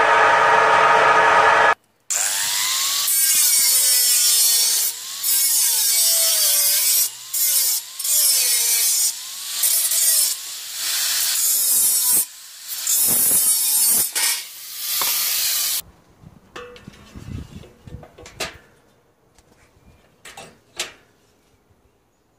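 A homemade belt-driven table saw runs with a steady whine for the first couple of seconds. Then a hand-held angle grinder cuts into a metal strip for about fourteen seconds, its pitch sagging and recovering as the disc bites, with several short breaks. After it stops, a few light metallic clinks.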